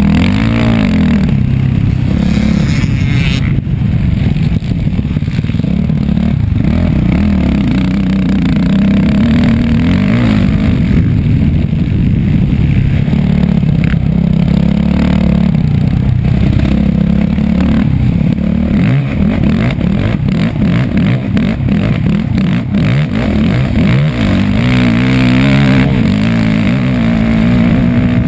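Off-road motorcycle engine revving hard and falling back again and again as the rider accelerates, shifts and brakes at race pace. Rattling and knocks from the bike over the rough dirt track, thickest after the middle.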